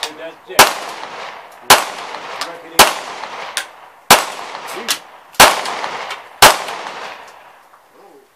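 Handgun fired six times, about one shot a second, each shot followed by a ringing echo; the firing stops near the end.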